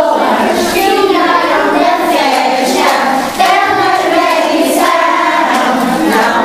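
A group of young children singing a song together, with a brief break in the singing a little past halfway.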